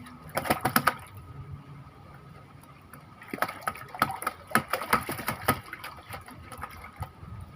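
Fishing reel being cranked: two spells of rapid clicking, about five clicks a second, one at the start and a longer one from about three seconds in.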